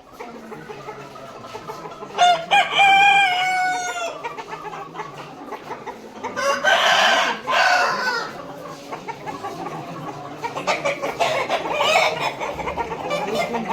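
Roosters crowing, three long crows, over the constant clucking of a flock of chickens.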